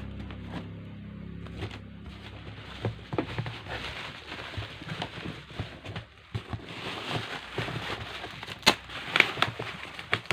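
Packaging being handled during an unboxing: irregular crackling and rustling with scattered sharp clicks and knocks, busiest near the end.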